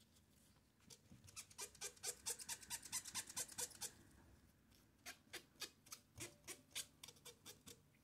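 Flannel rag squeaking against the gloss black paint of a typewriter carriage as polishing compound is buffed off, in quick back-and-forth rubbing strokes. The rubbing comes in two runs, the second slower than the first.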